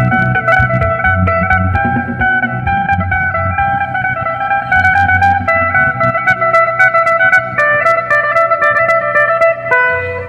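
Electric phin (Isan Thai lute) played through an amplifier: a quick plucked melody over a held drone note. The picking grows denser and sharper about five seconds in.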